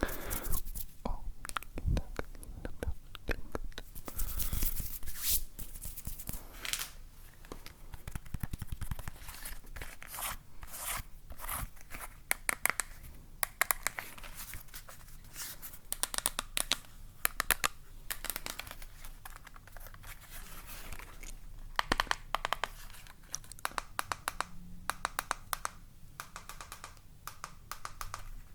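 Close-miked ASMR trigger sounds: scratching and crinkling of handled objects, broken by clusters of quick taps and clicks.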